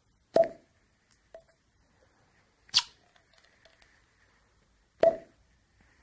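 Foley for an eye being pulled out of a head: three short, sharp snaps about two and a half seconds apart, made by twisting a pale stalk close to the microphone.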